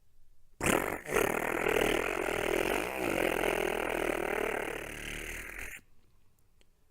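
18V DeWalt impact driver hammering a 3-inch screw into a wooden leg: a steady buzzing rattle for about five seconds, with a brief break about a second in.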